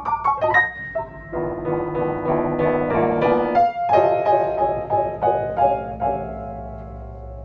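Grand piano played: a quick series of struck chords, then the last chord left ringing and fading away near the end.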